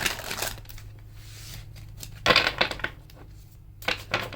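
A tarot deck being shuffled by hand: bursts of crisp card riffling and tapping, loudest a little past two seconds in and again near the end.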